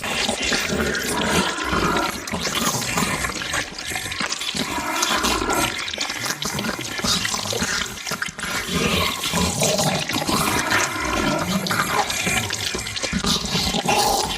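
Monster-eating sound effect: continuous wet, gurgling chewing noise, with low growling grunts coming back every couple of seconds.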